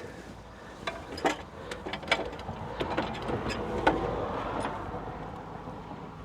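Hand tools clicking and clinking at a spark plug well, a few irregular sharp metallic clicks over soft handling noise that swells in the middle.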